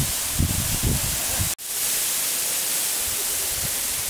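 Waterfall spilling over travertine rock into a shallow pool: a steady rushing hiss of falling and splashing water. There is low buffeting on the microphone in the first second and a half, and the sound cuts out sharply for an instant about a second and a half in.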